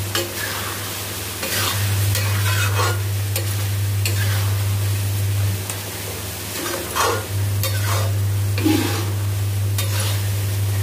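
A metal spatula scraping and stirring wet tomato masala as it sizzles and fries in a metal kadhai, in irregular strokes about once a second. A steady low hum runs underneath.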